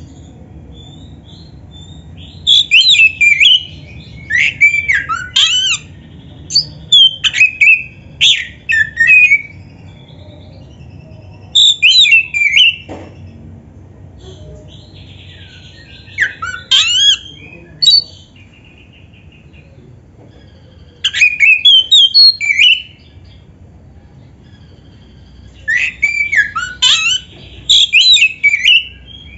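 Oriental magpie-robin (kacer) singing its aggressive challenging song in loud bursts of rapid, varied swooping whistles. About six phrases, each one to three seconds long, are separated by short pauses.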